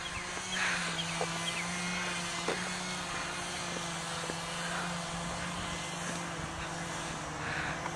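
A steady engine drone holding one pitch throughout, with a few faint high chirps and light knocks over it.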